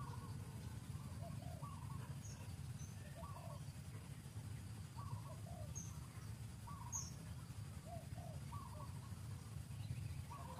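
A bird calling over and over, a short two-note call about once a second, with a few brief high chirps between and a steady low rumble underneath.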